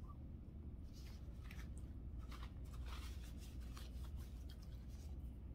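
Quiet room tone: a steady low hum with a few faint, soft clicks and rustles, like small handling noises at a desk.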